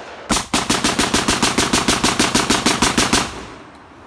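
Barak 99S firing a long, rapid string of shots, about seven a second, starting about a third of a second in. The firing stops about three seconds in and the echo fades.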